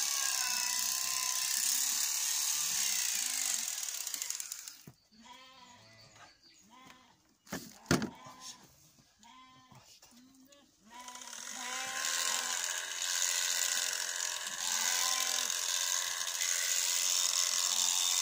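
Electric sheep shears running steadily while cutting through fleece, switched off about four and a half seconds in, with a sharp click in the quiet gap, then started again about eleven seconds in and running steadily.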